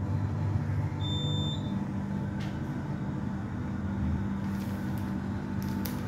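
Elevator car travelling upward: a steady low hum from the lift's drive, with one short high electronic beep about a second in.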